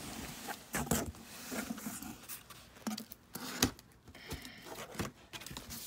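Cardboard shipping box being opened: scissors working at the packing tape and the cardboard flaps pulled back, with scraping and rustling and several sharp clicks.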